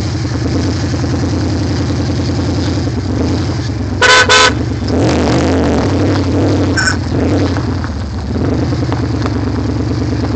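Dodge Ram 1500 pickup's engine idling steadily, with two quick toots of its horn about four seconds in.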